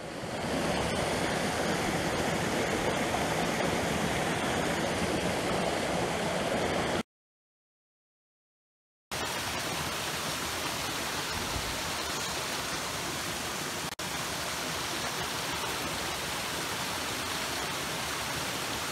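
Steady rushing of a waterfall, broken by about two seconds of dead silence a third of the way in, then resuming slightly quieter.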